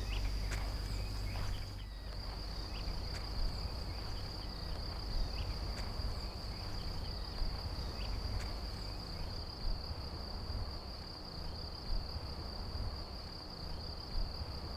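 Crickets chirping in a continuous high-pitched trill, with a low rumble and a few faint ticks underneath.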